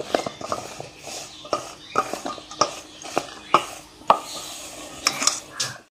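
Raw potato sticks dusted with cornflour tossed by hand in a stainless steel bowl, knocking and rattling against the metal in irregular sharp clicks.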